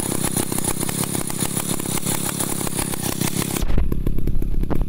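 Small engine of a homemade log winch running steadily while hauling logs up the slope on its steel cable. About three and a half seconds in, the sound turns duller and heavier in the low end.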